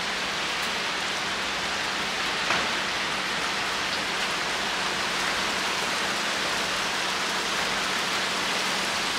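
Steady rain falling, an even hiss of drops, with a faint low hum underneath and one small tap about two and a half seconds in.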